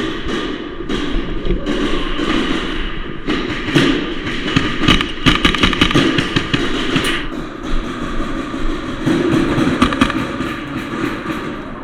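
Airsoft guns firing: many sharp cracks in rapid bursts, thickest around the middle, over a steady background din.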